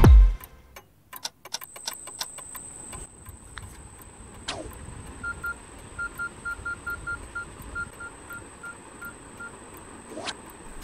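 Mobile phone keypad tones as a text message is typed: a run of about a dozen short beeps at one pitch, one per key press, over a faint steady high whine.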